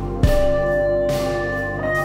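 Music for a stage dance piece: held, sustained tones, with a low hit about a quarter second in as a new note enters and rings on.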